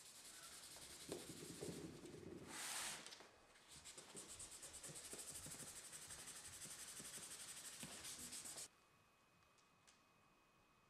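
Hands and fingers rubbing and pressing over a motorcycle helmet's painted shell: a faint, scratchy rubbing made of quick strokes, with one brief louder scrape about three seconds in. It cuts off abruptly near the end.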